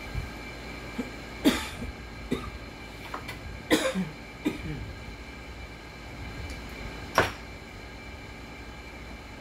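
Short knocks and clicks of small metal parts being handled on a workbench as heatsinks are taken off an inverter welder's board. There are about half a dozen of them over a steady hum, the sharpest about one and a half, three and a half and seven seconds in.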